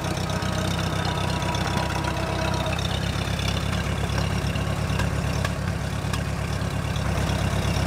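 Old farm tractor's engine running steadily at low speed as the tractor is driven slowly along.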